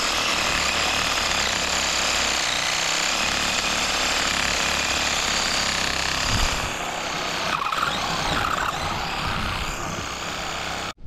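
Ryobi battery-powered saw cutting through dry brush branches, running steadily under load, then stopping abruptly near the end.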